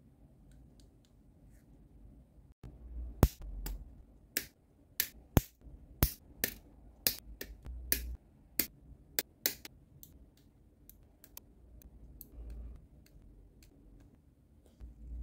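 GodHand plastic nippers snipping plastic model-kit parts off the runner: a run of sharp, irregular clicks, about two a second and loudest through the middle, with fainter clicks near the start and end.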